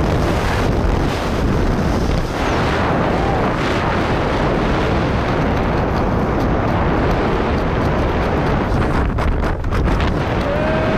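Loud, steady wind rushing and buffeting over a handheld action camera's microphone during a tandem skydive, right after the parachute opens.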